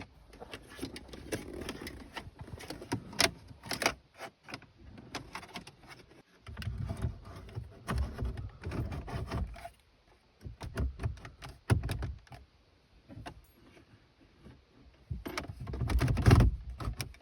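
Handling noise of a cable being fed down behind a car's dashboard trim: rustling and scraping with scattered clicks and knocks, loudest near the end.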